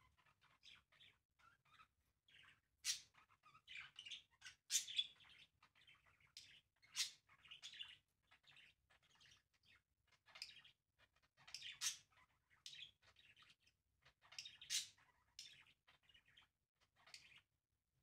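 Pet budgerigars chirping: a steady run of short, high chirps, with a few louder, sharper ones among them. The calls stop shortly before the end.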